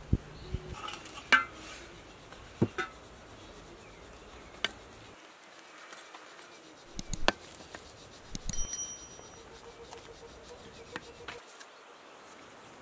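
Scattered knocks and clicks of cookware and utensils as a lid comes off a large aluminium pot and rice is scooped with a spatula into a cut-glass bowl, with a short bright ringing clink about eight and a half seconds in.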